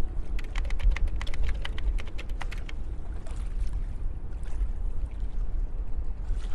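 Small waves lapping and splashing on open water close to the microphone, over a steady low rumble. About half a second to two and a half seconds in comes a quick run of small sharp ticks, then a few fainter ones.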